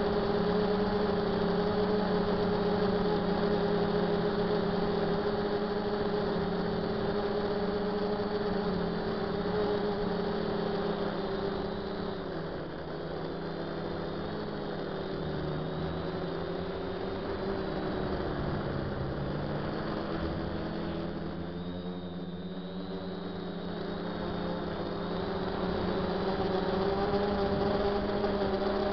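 DJI F450 quadcopter's motors and propellers droning steadily, heard close from the camera on board. The pitch and level sag briefly twice as the motors slow, a little before halfway and again about three-quarters through, then climb back near the end.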